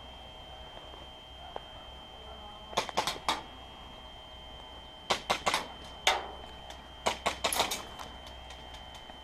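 Airsoft gas pistol firing: sharp clacks in quick strings, three together about three seconds in, a few more around five to six seconds, then a faster run of six or more near the end.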